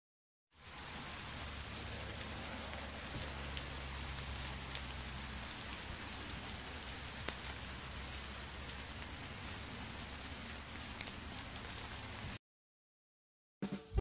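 Steady hiss with a low hum underneath and a few faint ticks, starting about half a second in and cutting off suddenly near the end.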